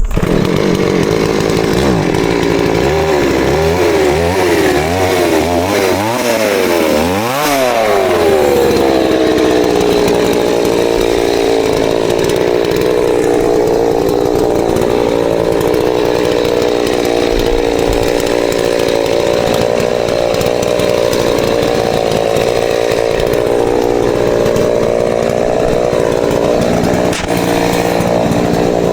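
New West 588 two-stroke chainsaw, revved up and down several times in quick blips over the first few seconds, then held at high throttle with its pitch sagging and wavering as it cuts into a tree.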